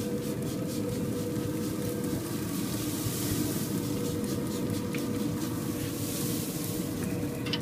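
Steady hum and hiss of a Yoder YS1500 pellet smoker running with its lid open, with a few quick spritzes from a hand spray bottle misting the pork butts in the first couple of seconds.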